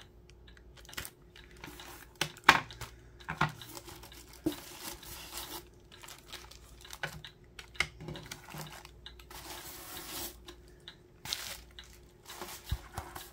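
Packaging rustling and crinkling as items are handled and taken out of a parcel, with scattered light clicks and knocks of small objects being moved; the sharpest knock comes about two and a half seconds in.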